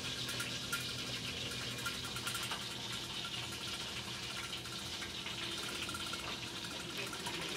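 Coconut-milk stew simmering in a covered stainless-steel pot: a steady bubbling hiss with a faint low hum beneath it.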